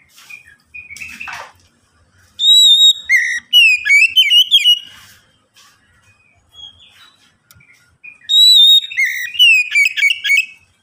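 Oriental magpie-robin singing: two loud phrases, each opening with a clear held whistle and breaking into quick notes that jump up and down, with softer calls between them.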